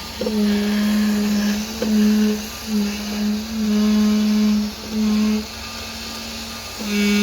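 Excavator hydraulics whining in repeated on-off spells of half a second to a second and a half, each starting with a click, as the controls are worked, over the steady hum of the running machine.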